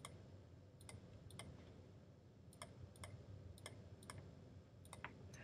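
Faint computer mouse clicks, about nine at irregular spacing, some in quick pairs, as single dots are placed one by one.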